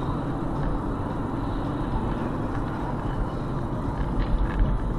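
Steady road and engine noise inside a moving car's cabin, picked up by a dashcam at highway speed, with a few faint clicks about four seconds in.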